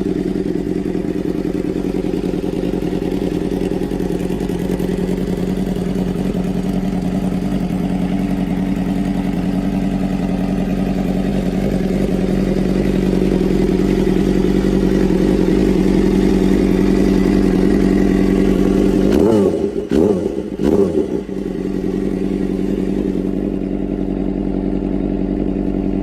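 Motorcycle engine idling with a steady, loud note, blipped twice in quick succession with short revs about three-quarters of the way through, then settling back to idle.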